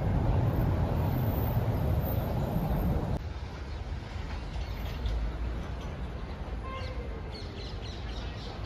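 City street ambience: a steady low rumble of traffic that drops suddenly about three seconds in to a quieter background, with a few short high chirps near the end.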